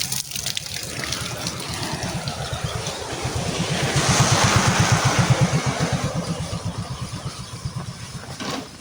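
A small motor vehicle's engine passing by, growing louder to a peak about halfway through, then fading away.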